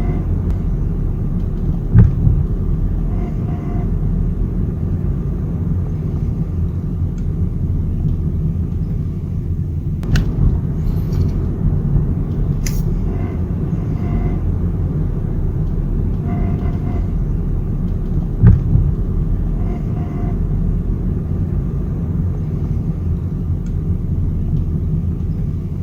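Honda Civic driving slowly in low gear, a steady low rumble of road and engine, with sharp knocks about two seconds in and again near eighteen seconds, a few lighter clicks, and faint squeaks now and then. The rattle and squeak are put down by the owner to the sway bar, which may be broken.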